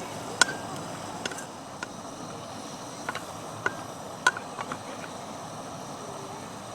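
Sharp clicks or light taps, about half a dozen at irregular intervals, some with a brief ringing note, over a steady background hiss.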